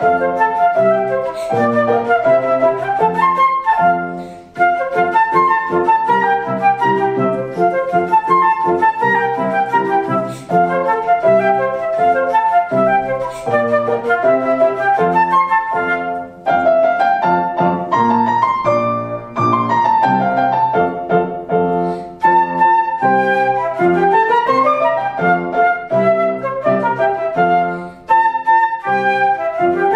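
Concert flute playing a classical melody with Feurich grand piano accompaniment, the flute on top in quick runs of notes that climb and fall.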